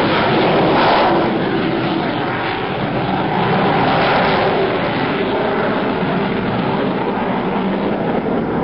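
Aircraft engine noise from a display aircraft flying past, a loud, steady rushing sound that dips slightly a second or two in.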